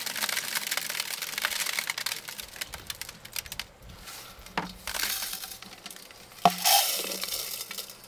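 Stainless steel tumbling pins and metal RF adapters pouring out of a rotary tumbler drum into a plastic strainer basket: a dense metallic clatter and jingling that thins out after about two and a half seconds. Two more bursts of clinking follow as the last pieces are shaken out, each starting with a sharp knock.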